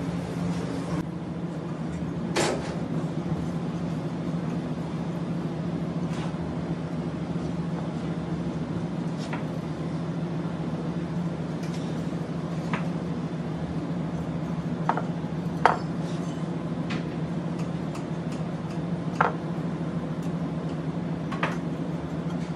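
Occasional light knocks and clinks of dishes and a knife on a kitchen work table, about eight of them a few seconds apart, over a steady low hum.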